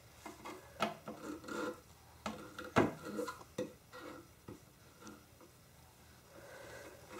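Rubbing and scraping with scattered short knocks as a baby crawls on a hard tiled floor under a wooden table. The sharpest knock comes nearly 3 seconds in.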